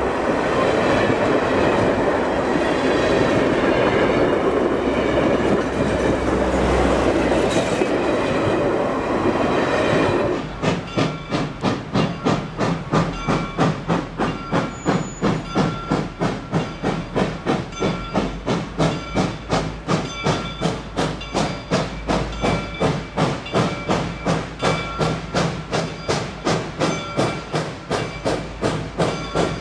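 Passenger railcars rolling close by with a steady roar of wheels on rail. About ten seconds in this gives way to steam locomotive 425, a 4-6-2 Pacific, chuffing at an even beat of about three exhaust beats a second as it works slowly forward.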